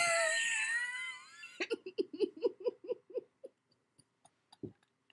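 A young woman's high, wavering squeal tailing off, then a run of quick breathy giggles that fade out, and a soft thump near the end.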